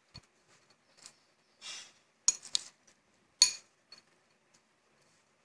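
Metal spoon clinking and scraping against a bowl while stirring soaked moong dal and jaggery: a few sharp clinks, the loudest about three and a half seconds in, with a short scrape near two seconds.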